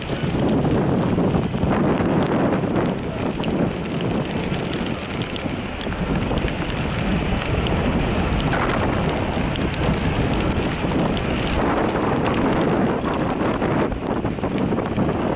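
Rain and wind on the camera microphone: a loud, steady noise with a few faint drop ticks.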